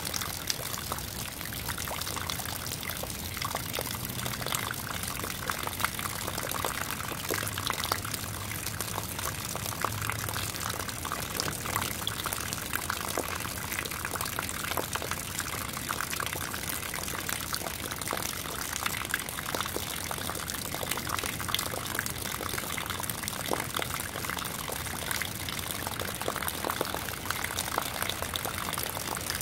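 Rainwater pouring off the edge of a concrete slab in thin streams into a puddle: a steady splashing dense with small drop splashes.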